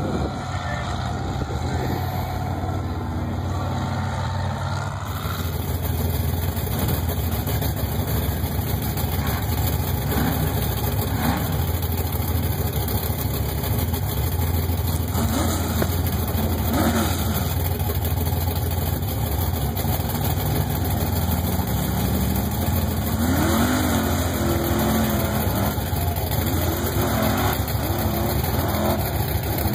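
Mega truck engine running under load as the truck races across a dirt course, with repeated rising revs, most of them in the second half.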